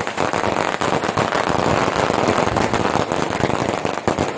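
Fireworks going off in a dense, rapid crackle of many overlapping pops and bangs.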